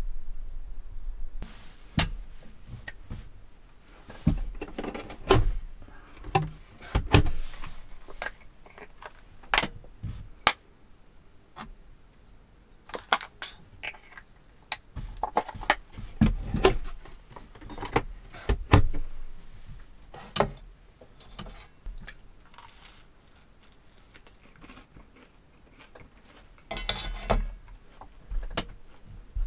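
Eating and table-handling sounds: scattered clinks and taps of utensils on a metal plate, rustling of a small packet, and chewing near the end.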